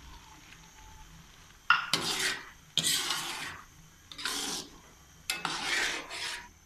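A metal spoon stirs and scrapes a thick grated-carrot halwa mixture around a large metal karahi, in four rasping strokes starting about two seconds in. The milk in the mixture has cooked off, so it is nearly dry.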